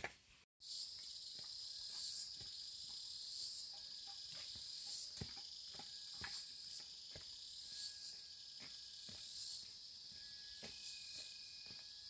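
Insects chirring in a steady high-pitched chorus that swells and fades every second or so, with scattered light clicks and knocks. The chorus starts after a brief gap of silence about half a second in.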